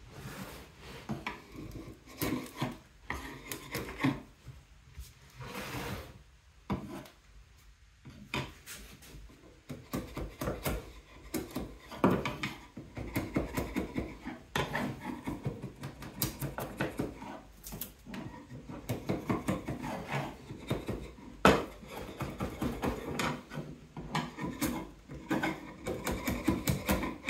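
Hand scraping and rubbing on the red oak of a cutting board, in quick, irregular strokes with no motor running.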